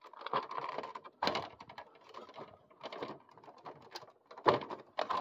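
Plastic cover panel on a Senville Aura mini-split indoor head being handled and pushed into place: irregular plastic clicks, taps and short scrapes, the loudest about a second in and again near the end.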